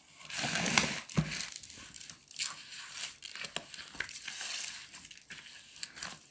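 A bare hand kneading and squeezing sticky date paste mixed with toasted sesame seeds in a plastic bowl: a run of irregular rubbing, squishing strokes as the mixture is worked together.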